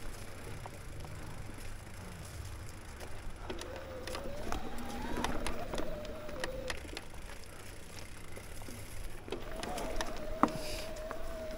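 Mountain bike riding a dirt trail: steady wind and tyre rumble with scattered rattles and ticks. A whining tone rises in pitch in the middle and returns, held steady, near the end. A single sharp clack about ten seconds in is the loudest moment.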